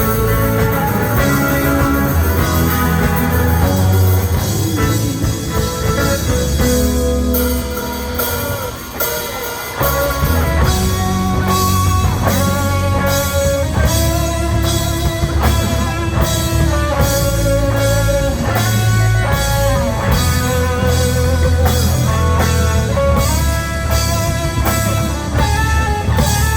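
Rock music with guitar and a drum kit. The music thins out briefly about nine seconds in, then comes back with a steady drum beat under held guitar notes.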